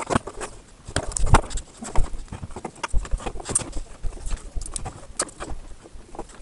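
Irregular knocks, clicks and clatter of an aluminium e-bike battery case and its parts being handled on a workbench, with one sharper knock about a second and a half in.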